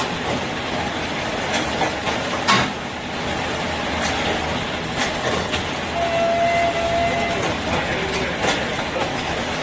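Produce binding machine running with a steady mechanical noise, broken by a few sharp clicks a second or more apart and a short steady whine near the end.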